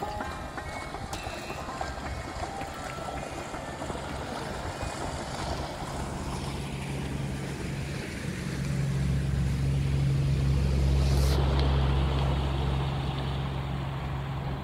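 An engine running with a steady low hum that grows louder about halfway through and eases off near the end, as it passes close by.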